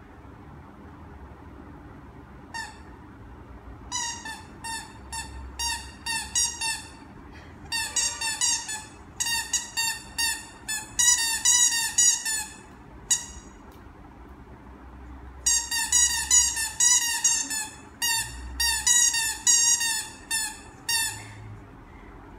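Squeaky ball toy squeaked over and over as a Shih Tzu puppy chews it: runs of short, high squeaks, with a pause of about two seconds midway.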